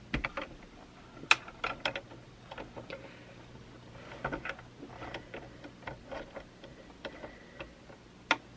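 Light, irregular clicks and taps of small metal and plastic parts as hands work at a sewing machine's presser foot and needle area during reassembly, with one sharper click about a second in and another near the end.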